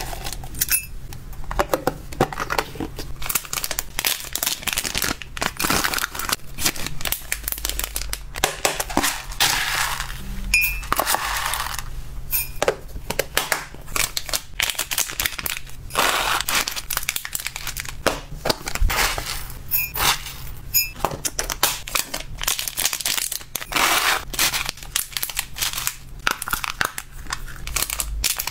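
Clear plastic zip-lock bag crinkling and rustling as it is handled and a label is pressed onto it. Near the start, dried vegetable chips rustle in a plastic tub.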